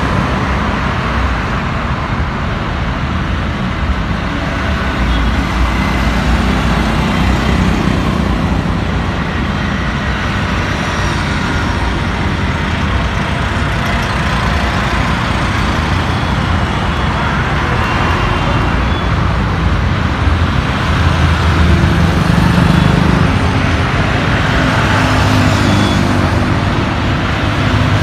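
Steady city road traffic: cars, auto-rickshaws and motorcycles passing on a wide multi-lane road, their engines and tyres blending into a continuous noise. It grows a little louder about three quarters of the way in, as nearer vehicles go by.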